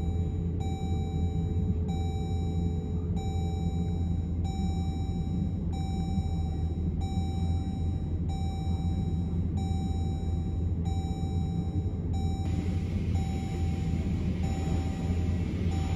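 A Jeep's electronic warning chime repeats evenly, about one and a half pulses a second, over the steady low hum of its idling engine. About twelve seconds in, a hiss of car-wash spray joins.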